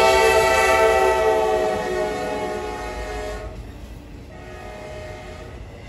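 Horn of a passing Norfolk Southern GE AC44C6M freight locomotive, sounding a long, steady chord that fades and cuts off about three and a half seconds in. After it comes the lower rumble of double-stack intermodal cars rolling by.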